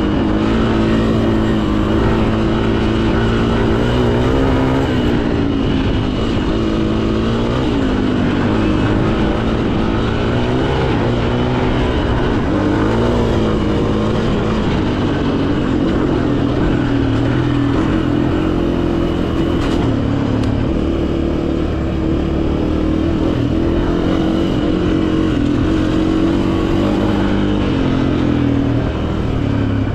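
Honda CRF250F dirt bike's single-cylinder four-stroke engine running while ridden, its pitch rising and falling with the throttle.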